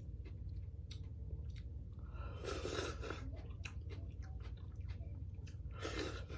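Close-miked chewing of food, with many small wet mouth clicks and two longer, louder mouth sounds about two and a half and six seconds in, over a steady low hum.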